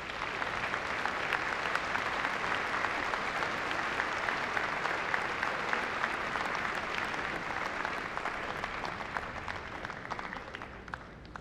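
Large audience applauding, a dense steady patter of many hands clapping that thins out and fades over the last couple of seconds.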